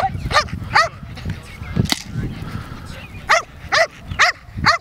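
A Belgian Malinois barking in bursts at a decoy during protection bite work: three quick barks at the start, then a run of four more near the end. A single sharp crack comes in the pause between them, about two seconds in.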